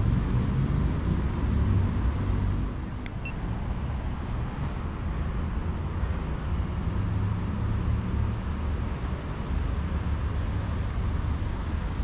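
Steady low rumble of outdoor street noise, with a single sharp click about three seconds in.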